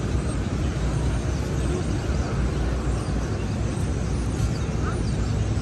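City street traffic noise: a steady low hum of passing vehicles' engines and tyres.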